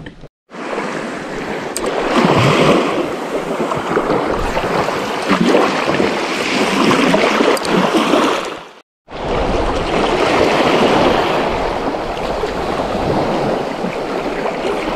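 Small waves breaking and washing up on a sandy shore, swelling and ebbing every few seconds. The sound cuts out completely for a moment just after the start and again about nine seconds in.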